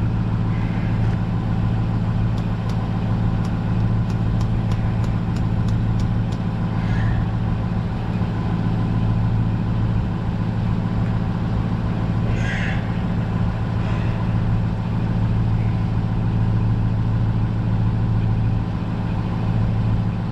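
A steady low hum of running machinery, like an engine idling, throughout. A run of light ticks, about three a second, comes a couple of seconds in, and there are a few short scrapes.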